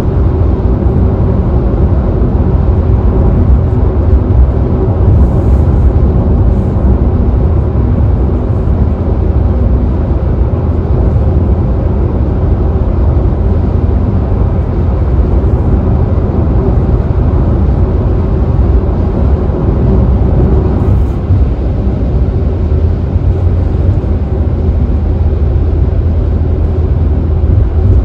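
Car driving at freeway speed: steady, loud road noise from the tyres and engine, with no change in pace.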